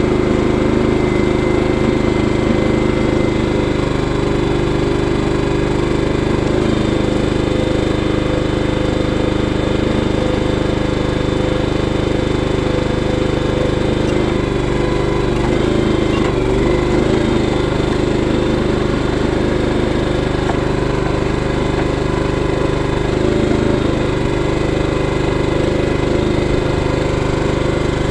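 Small gasoline engine of a towable trencher-backhoe running steadily at a constant speed, driving its hydraulics.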